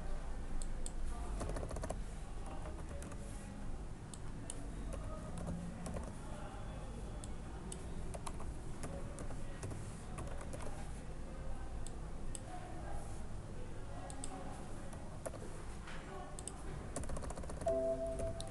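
Computer keyboard typing: irregular key clicks as dates and times are entered into form fields, over a steady low hum.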